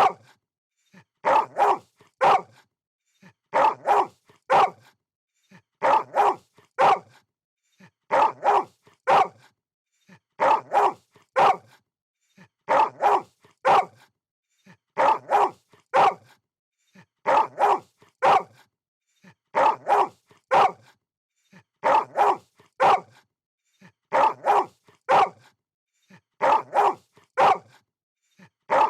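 A dog barking in short volleys of three or four barks, the volleys repeating evenly about every two and a quarter seconds.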